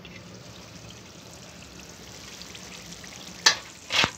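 Keema in a yogurt and tomato masala simmering quietly under a covered pan: a faint, steady bubbling hiss. Near the end come two sharp knocks, about half a second apart.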